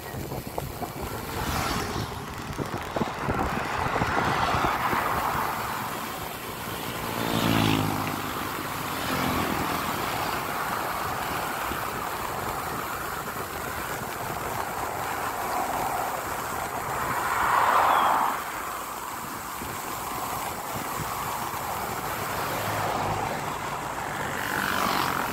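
Motor vehicles passing on the road alongside a moving bicycle, over a steady rush of wind and road noise. About seven seconds in, one engine goes by with its pitch falling, and a louder vehicle passes about two-thirds of the way through.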